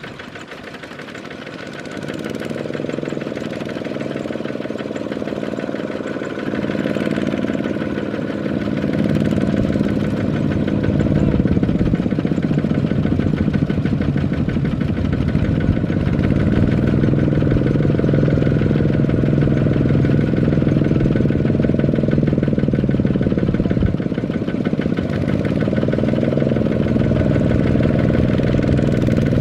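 Kubota RT155 power tiller's single-cylinder diesel engine running under load, pulling a loaded rice trailer in mud. It picks up a couple of seconds in and grows louder in steps, and the revs rise and fall a few times later on.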